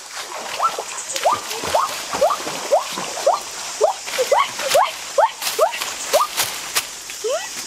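Water splashing as a person wades out of a shallow muddy stream, with scattered sharp splashes and steps. Over it a short rising call repeats about twice a second.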